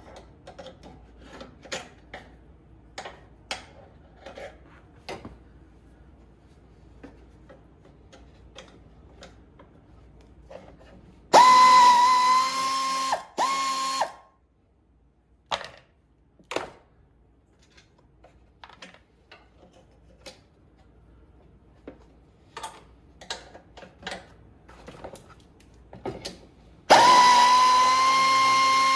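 Small clicks and taps of hand tools on metal parts, then twice a cordless power tool's motor spins up to a steady whine for about two and a half seconds, once about eleven seconds in with a brief stop and restart, and again near the end.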